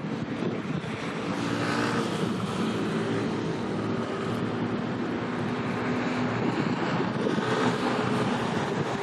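An engine running with a steady low hum through wind noise on the microphone and the wash of water.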